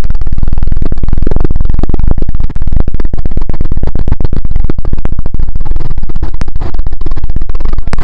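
Loud, distorted wind buffeting and rattling on the microphone of a camera carried on a moving quad bike (ATV) ridden over desert sand.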